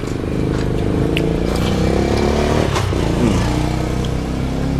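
A small motorbike engine running steadily at low revs, its pitch wavering slightly; it cuts in abruptly at the start.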